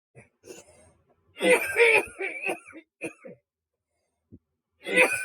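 A man coughing hard in two fits, the first about a second and a half in and the second starting near the end, with a couple of short coughs between them: a smoker's coughing fit after a hit of cannabis.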